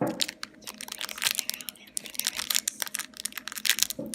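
Small plastic candy bags crinkling and rustling as they are handled and torn open, an irregular run of crackles.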